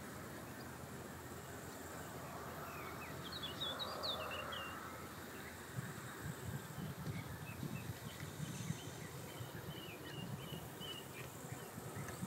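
Open-air ambience with a steady hiss and a small bird chirping in quick runs of short notes, twice. Irregular low buffets, like wind on the microphone, come in the second half.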